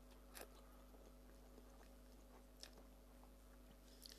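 Faint chewing of a mouthful of instant noodles, with a few soft mouth clicks over otherwise near silence.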